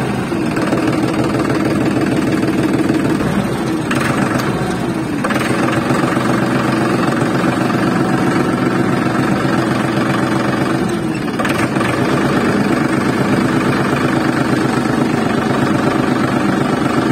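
Tractor engine running steadily with a fast low chug, dipping briefly about four seconds in and again about eleven seconds in.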